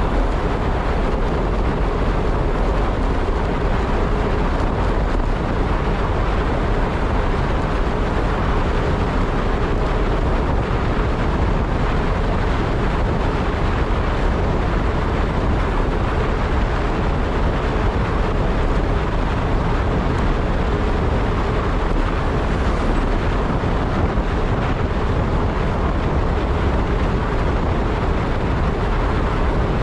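Steady rush of wind and road noise on the microphone of a moving ride, with a faint constant hum underneath and no breaks.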